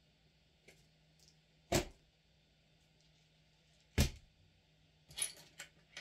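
Boxes set down on a cutting mat: a sharp knock a little under two seconds in, and a louder knock about four seconds in as a clear plastic parts organiser box is put down. Near the end comes a short clatter of small hard objects.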